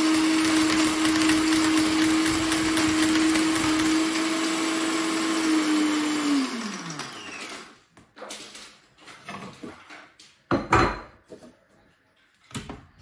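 SilverCrest SSMKH 600 A1 jug blender running steadily at speed; about six seconds in it is switched off and the motor winds down, its whine falling in pitch over a second or two. A few knocks follow, with one loud thump about two-thirds of the way through.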